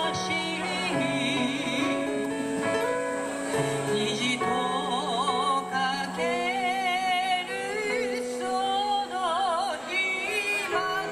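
Live song: a woman singing while accompanying herself on an electric stage piano, with a guitar playing along. Her held notes waver with a wide vibrato in the second half.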